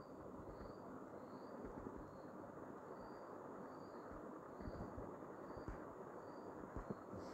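Faint room hiss with a faint, short, high chirp repeating about twice a second.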